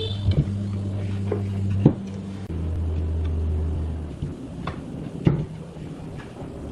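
A steady low machine hum that drops to a lower pitch about two and a half seconds in and stops a second and a half later, with scattered knocks and clicks.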